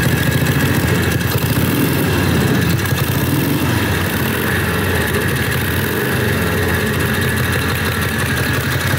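Harley-Davidson 45 flathead V-twin motorcycle engine running steadily, freshly revived after about 30 years without running; it starts good and revs excellent, with oil circulating.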